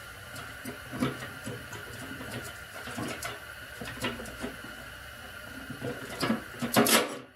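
Metal parts of a homemade gas tank mount being handled and fitted together with threaded rod: scattered light clicks and taps over a faint steady hum, then a louder run of scraping and rubbing near the end.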